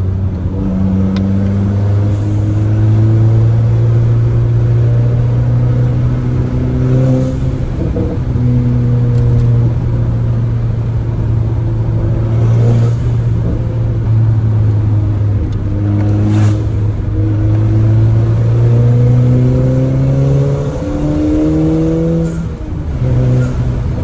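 Turbocharged Volkswagen four-cylinder, heard from inside the cabin, running with its exhaust cutout open after an aftermarket downpipe. It makes a loud drone that climbs in pitch as the car accelerates and drops back at the shifts. A few brief hisses come from the Forge diverter valve venting on lift-off.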